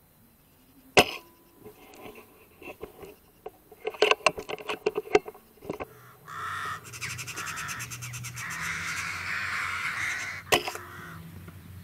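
A Eurasian magpie chattering, a harsh rattle lasting about four seconds, ended by a single sharp crack near the end: a shot from a .22 Brocock Ranger air rifle. Before it there is a loud sharp click about a second in and a run of clicks and knocks a few seconds later.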